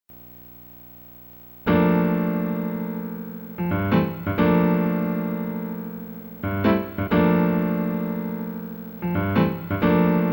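Background music on electric piano: sustained chords struck roughly every two and a half to three seconds and left to fade, with a few quicker notes between them, after a quiet opening second and a half.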